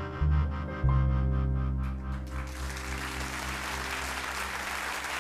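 The song's last low chord rings out and fades. About two seconds in, audience applause breaks out and swells into steady clapping.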